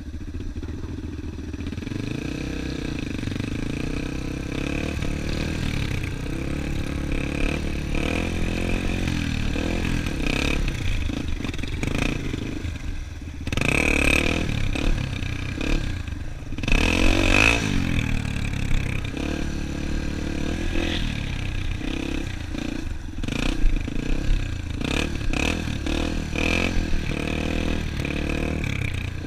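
Dirt bike engine running while riding on a sandy trail, revved harder twice near the middle, with clattering from the bike over the rough ground. Heard from a helmet-mounted camera.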